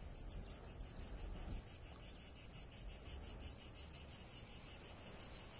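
A cricket chirring steadily in rapid, evenly spaced, high-pitched pulses, fairly quiet.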